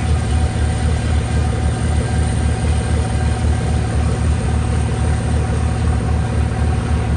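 Diesel freight locomotive engine running close by, a steady deep throb with even low pulses and no change in pitch.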